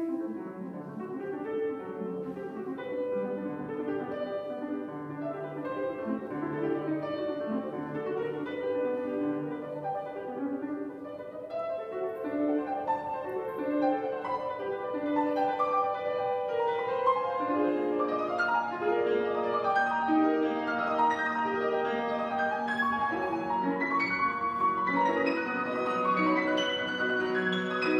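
Solo Fazioli grand piano playing classical music: a dense, continuous stream of notes that grows louder over the passage.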